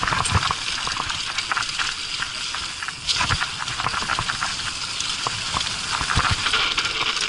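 Dry fallen leaves crunching and rustling on a forest trail, full of irregular crackles, with scattered low knocks.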